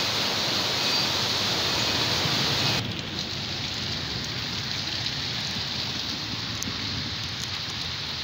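Heavy rain pouring onto a flooded street, a dense, even hiss. About three seconds in it drops suddenly to a quieter rain hiss with scattered light ticks of drops.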